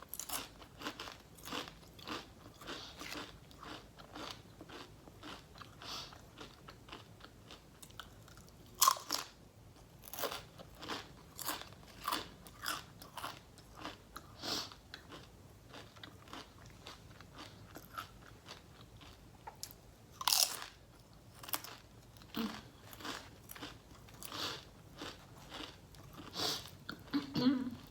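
A person crunching and chewing Nacho Cheese Doritos tortilla chips close to the microphone: a steady run of crisp crunches, with the loudest bites about nine seconds in and about twenty seconds in.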